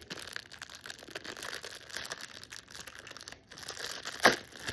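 Plastic wrapping of a squishy toy crinkling and rustling as it is opened by hand, in irregular small crackles, with one sharper crackle near the end.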